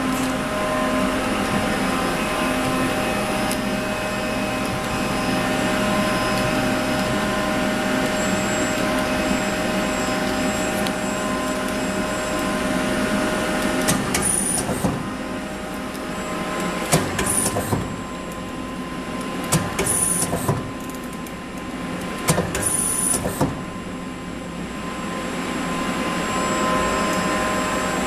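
1986 Mori Seiki AL2 CNC lathe running with a steady motor whine and hum. In the second half come several short hissing bursts and knocks from the machine's working cycle.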